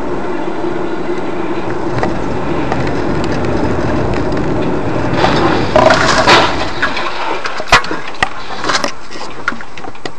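Steady road and engine noise heard from inside a car, then a car collision about six seconds in: a loud burst of impact and breaking noise, followed by a few sharp separate knocks as debris hits the road.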